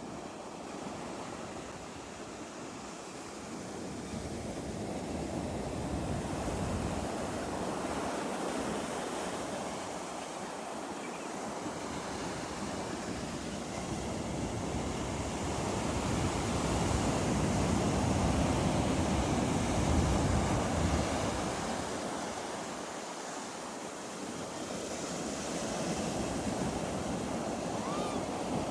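Ocean surf: waves rolling in and washing onto a beach in a continuous wash that swells to its loudest a little past the middle, eases off, then builds again near the end.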